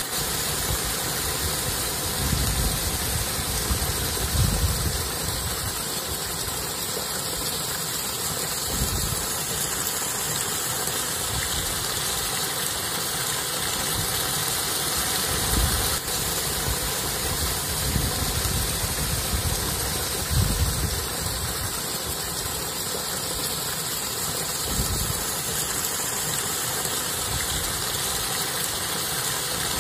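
Wind buffeting the microphone in irregular low rumbling gusts over a steady rushing hiss.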